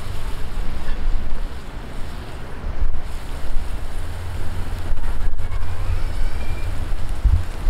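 Wind buffeting the microphone: a loud, uneven low rumble that swells and falls.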